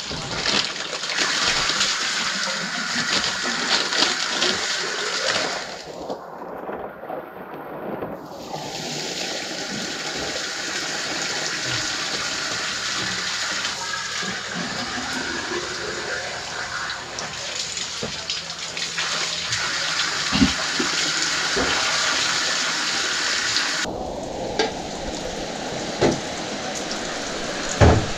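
Steady rushing water noise, with its hiss dropping out abruptly for a couple of seconds about six seconds in and again near the end.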